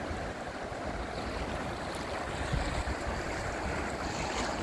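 Steady rush and wash of swirling tidal water along a small sailing yacht's hull, with wind rumbling on the microphone.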